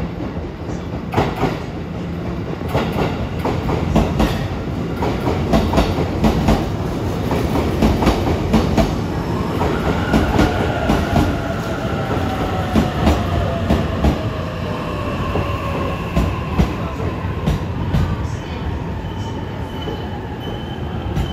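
E233 series 3000 electric commuter train pulling into a platform, its wheels clacking over the rail joints. About halfway through, the motors' whine falls steadily in pitch as it brakes. A thin high squeal comes in near the end as it draws to a stop.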